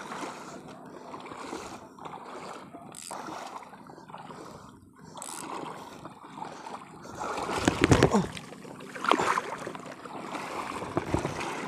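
Shallow seawater sloshing and splashing around someone wading over a rocky, weedy bottom, with a few louder splashes about two-thirds of the way through.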